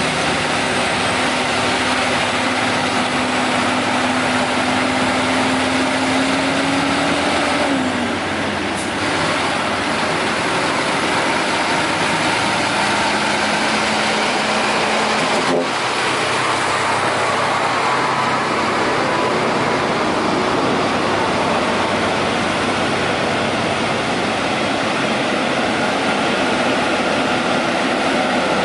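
Diesel engines of loaded log trucks, a FAW and then a Hino, running as they drive past. The engine pitch rises steadily for about eight seconds and then drops. There is a sharp click about halfway through.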